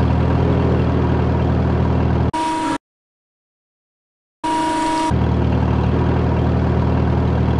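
Dubbed-in forklift engine sound running with a steady, even low hum. It cuts off about two and a half seconds in, leaving a second and a half of dead silence. It then starts again with a brief higher tone and runs on steadily.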